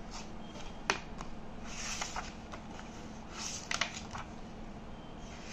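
Hardback book being opened and its paper pages turned on a wooden table: soft short swishes of paper with a few sharp clicks and taps, about a second in and again at about four seconds.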